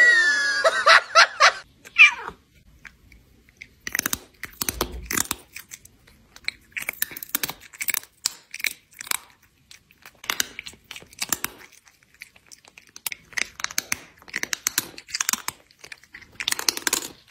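A cat chewing close to the microphone: quick runs of wet smacking and crunching clicks that stop and start. In the first two seconds, a short, loud, high-pitched cry.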